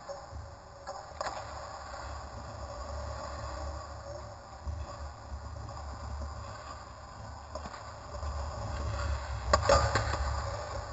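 Ice rink sound picked up at the goal: a low steady rumble with occasional sharp clicks, then, about nine and a half seconds in, a loud burst of skate blades scraping and clattering on the ice as a shooter reaches the crease.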